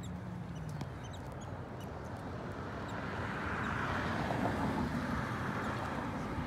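Steady outdoor vehicle noise, like traffic going by. It swells about three seconds in, then eases, as a car passes.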